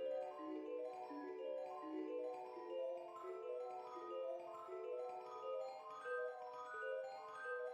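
Background music: a light melody of quick, evenly paced notes on a mallet instrument such as a marimba.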